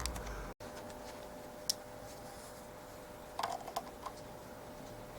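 Small metallic clicks of a hand tool on a fixing of a tinplate model locomotive as it is tightened: a single click about a second and a half in, then a short cluster of clicks just past the middle. A faint steady hum runs underneath.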